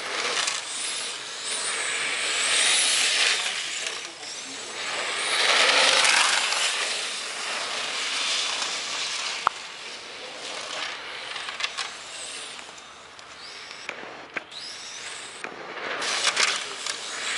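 Capricorn E801 radio-controlled racing car lapping the track: its motor and tyres swell loud as it passes and fade as it pulls away, with a rising whine each time it accelerates.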